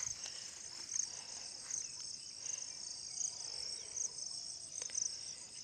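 Insects chirping steadily in a high shrill, with a regular pulse repeating under a second apart, and a few faint clicks.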